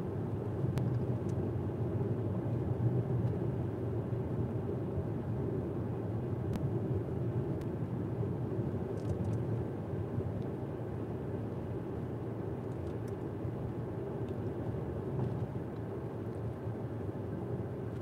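Steady road and engine noise of a car driving at road speed, heard from inside the cabin: an even, low hum of tyres on asphalt.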